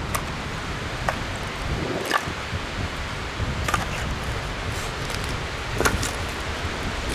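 Steady wind rushing over the ground and the microphone, with a handful of short sharp clicks or snaps spread through it.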